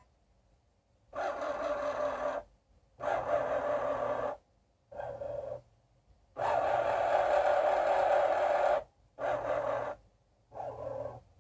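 Excalibur Phantom Force chess computer's under-board motorised carriage running in six separate bursts with short silent gaps, the longest about two and a half seconds, as it moves the pieces itself to carry out its capture, knight takes pawn on e5, and clears the captured pawn off the board.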